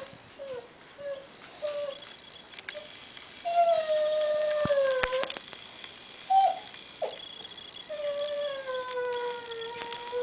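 Siberian husky howling and whining, set off by hearing a familiar child's voice from a computer. A few short whines come first. Then there are two long howls, one about three and a half seconds in and one from about eight seconds, each sliding slowly down in pitch, with a couple of short yelps between them.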